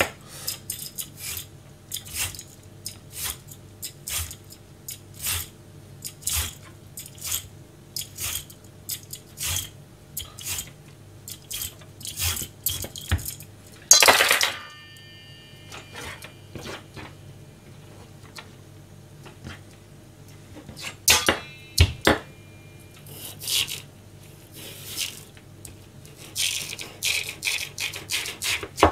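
Kitchen knife peeling the skin off a daikon radish in short downward strokes, a scrape about once a second. About halfway through a metal bowl clanks loudly and rings on, and a second ringing metal clatter comes about three quarters in.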